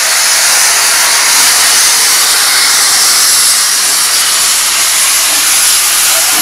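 Great Western saddle-tank steam locomotive No. 813 venting steam from its cylinder drain cocks, low at the front end: a loud, steady hiss.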